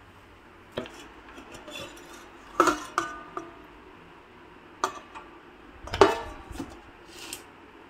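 Dishes and utensils clattering: about five sharp clinks and knocks, each with a brief ring, the loudest about six seconds in.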